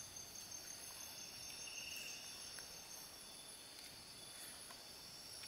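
Faint, steady chorus of crickets and other night insects, a few high continuous tones.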